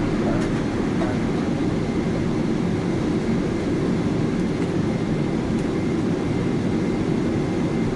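Steady cabin noise of a Boeing 777-300ER airliner in flight: a low, even rumble of engines and airflow with a faint high steady tone over it.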